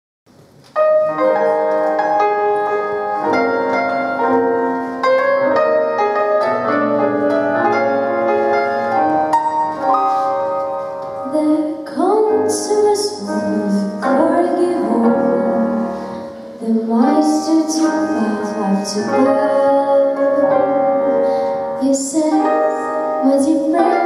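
A small live orchestra of strings and piano, with a drum kit, begins playing about a second in with a sustained instrumental introduction. About halfway through, a female singer comes in and sings over the accompaniment.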